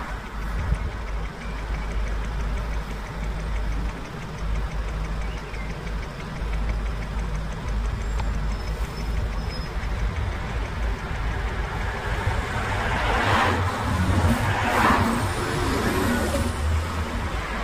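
Low, steady rumble of a car heard from inside the cabin, with a few louder rushing bursts about thirteen to seventeen seconds in.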